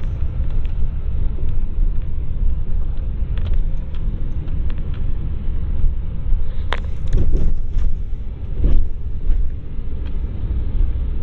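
Vehicle driving slowly over the snowy farm yard: a steady low rumble of engine and tyres, with a few short knocks and rattles about two-thirds of the way in.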